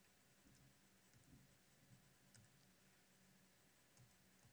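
Near silence with a few faint computer mouse clicks.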